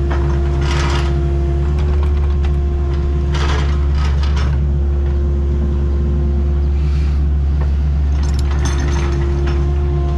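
Excavator's diesel engine running at a steady pitch, with several short bursts of mechanical clatter and hiss from the working machine.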